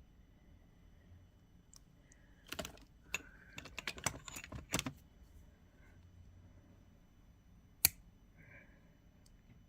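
Small metal tools and beads clicking as they are handled: a quick run of light clicks and rattles about two and a half seconds in, lasting a couple of seconds, then one sharp click near the end.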